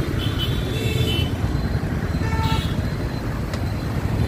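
Busy road traffic heard from within the flow: a steady low rumble of engines and tyres, with a vehicle horn tooting near the start and again a little past two seconds in.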